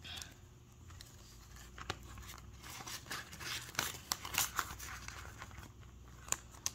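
Paper banknotes and a clear plastic zippered envelope in a cash budget binder rustling as bills are handled and slipped inside: faint scattered crackles, busiest about four seconds in, with two sharp clicks near the end.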